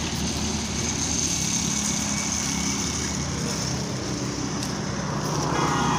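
An engine running steadily, with a hiss over it.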